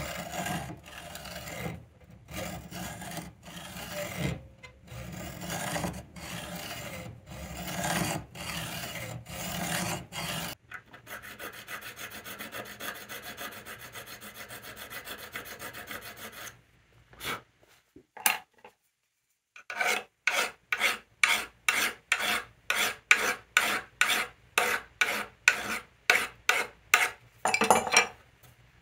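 Hand hacksaw strokes cutting a metal rod held in a vise. After a short break, a flat file works the small cut part in a vise in quick regular strokes, about two a second.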